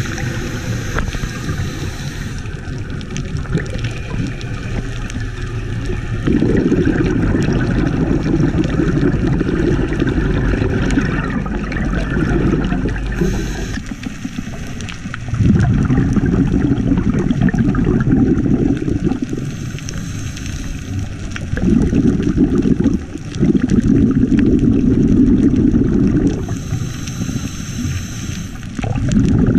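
A scuba diver's regulator breathing, heard underwater: short hissing inhalations alternating with long bursts of bubbling exhaled air, about one breath every seven seconds.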